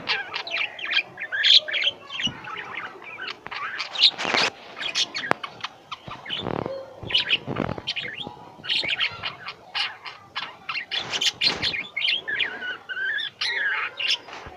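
Pet lovebirds chirping: a rapid, continuous run of short, high, overlapping chirps, with a few harsher, noisier calls mixed in.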